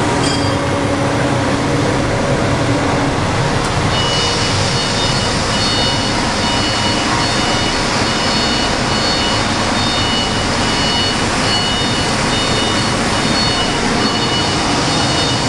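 CNC laser or engraving machine running, a steady mechanical noise. From about four seconds in it carries short, repeated high tones that start and stop.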